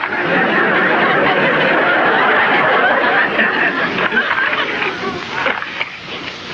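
Audience laughter from a sitcom laugh track, rising at the start and dying away near the end.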